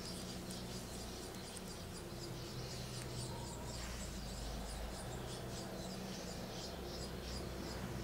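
Water trickling and dripping as a tyre is turned in a tub of water: a fast, irregular patter of small high blips over a low steady hum.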